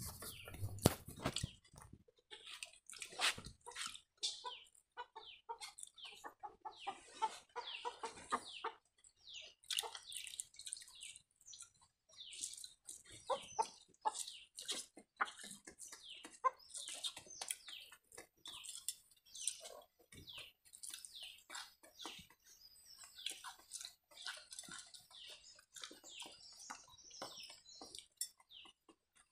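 Close-up eating sounds of pakhala (watered rice) and fried cabbage greens eaten by hand: a continuous run of short, sharp chewing, smacking and slurping noises.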